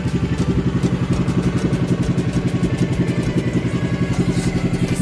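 Small boat engine running steadily at an even speed, with a fast, regular putter.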